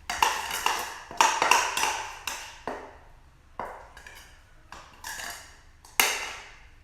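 Spoon clinking against a mixing bowl while stirring slime: about a dozen irregular ringing taps, the loudest near the start and about six seconds in.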